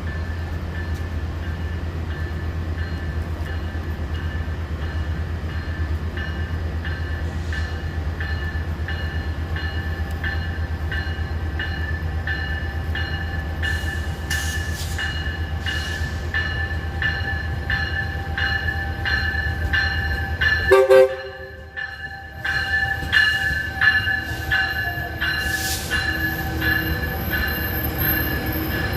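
Metrolink commuter train arriving, its engine rumbling steadily under an evenly repeating ringing, about one and a half strokes a second. About 21 seconds in comes a short, loud burst, most likely the two short horn taps, and near the end a high-pitched wheel squeal starts.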